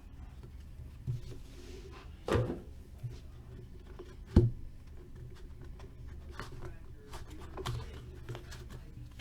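Hands opening and handling a sealed trading-card box: a knock a couple of seconds in, a sharp click about four seconds in, then a run of light ticks, over a steady low hum.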